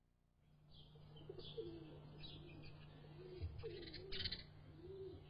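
Birds calling, fading in after a moment: a low, soft coo repeated about once a second, with brief higher chirps over a steady low hum.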